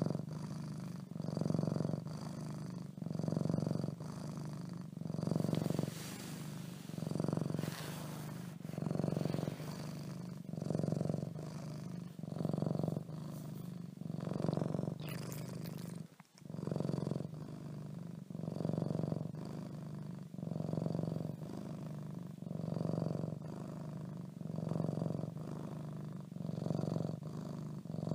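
Domestic cat purring steadily, the purr swelling and easing with each breath about every two seconds, with a short break about halfway through.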